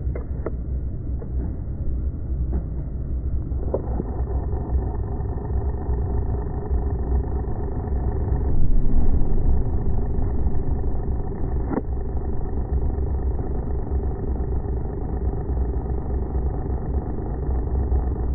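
Bucket truck's engine running steadily with a low rumble, with a few sharp knocks and a brief swell in loudness about nine seconds in.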